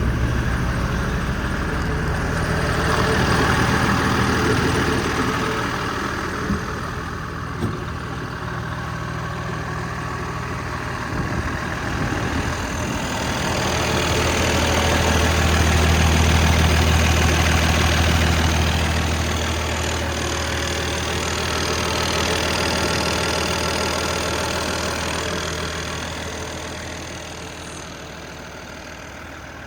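Cummins 8.3 ISC six-cylinder diesel idling at a steady speed, growing louder and softer in turns without any change in pitch. Two short clicks come about six and eight seconds in.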